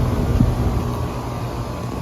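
Outdoor heat pump and air-conditioner condenser units running in cooling mode: a steady fan rush over a low compressor hum, with a hum tone that drops out under a second in.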